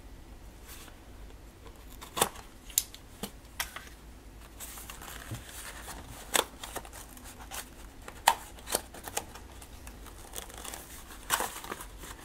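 Box cutter slicing the packing tape on a small cardboard box, then cardboard flaps scraping and rubbing as the box is pried open, with scattered sharp clicks and taps from handling it.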